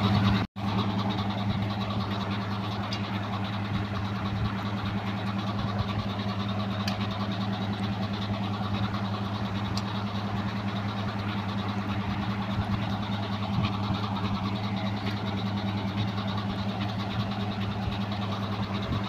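Electric fans running: a steady mechanical hum with a low 'ghor ghor' drone. The sound drops out briefly about half a second in.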